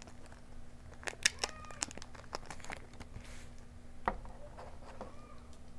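Naruto trading-card booster pack wrapper crinkling and tearing as it is pulled open, with scattered sharp crackles and clicks.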